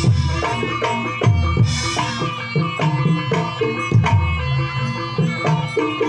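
Live Javanese jaranan accompaniment music: a percussion ensemble with hand drums keeping a busy, steady rhythm under sustained pitched tones. Deep strokes fall near the start, about a second in and about four seconds in, with a bright splash about a second and a half in.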